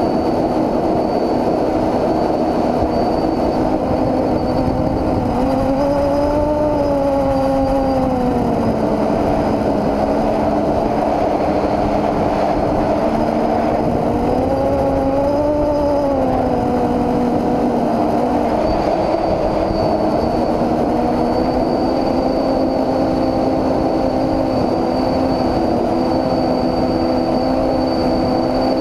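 Quadcopter's four SunnySky 2216 brushless motors spinning 9x5 propellers in flight: a steady buzzing hum over a rushing noise. Its pitch rises and falls twice with the throttle, then dips briefly near the end.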